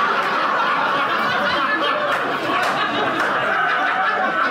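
Audience laughing, many voices at once at a steady level, in reaction to a punchline.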